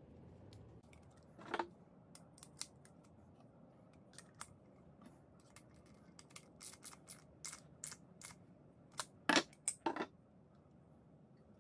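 Socket ratchet clicking in short, irregular strokes as a nut is tightened onto a bolt, with light metal clinks of the tools. About nine seconds in come a few louder knocks as a tool is set down on the wooden bench.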